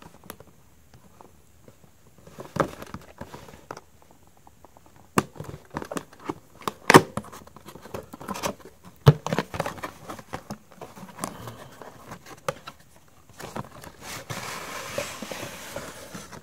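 Paperboard retail box being handled and opened by hand: irregular taps, clicks and knocks of the cardboard with scraping, then a longer sliding rustle near the end as the inner cardboard tray slides out.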